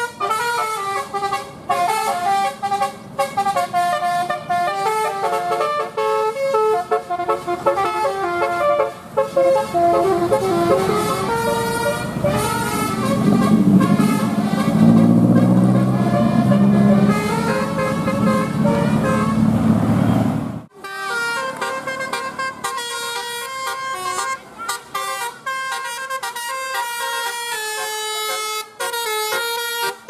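Tour-bus telolet horn, a set of air-horn trumpets driven by an electronic tune module, playing quick melodic runs of changing notes. The sound breaks off abruptly about two-thirds of the way through and another bus's telolet tune starts up.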